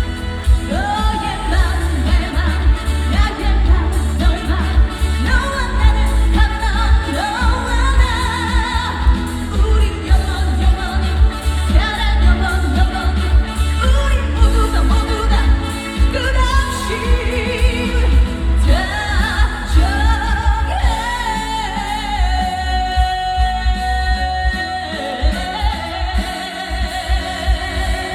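Female trot singer singing live with vibrato over an amplified band backing track with a strong bass beat. About two-thirds of the way through, the beat thins out under long held notes.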